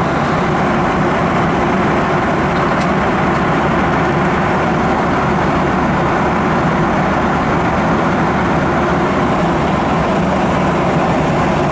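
Steady cabin noise of a jet airliner in cruise flight: an even roar of engines and rushing air, heard from inside the cabin at a window seat.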